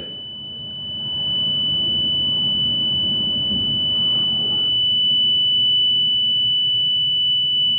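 Electric buzzer sounding one steady, unbroken high-pitched tone, powered by the Seebeck voltage from a Peltier module chilled with liquid nitrogen. A low rumble sits beneath it from about a second in.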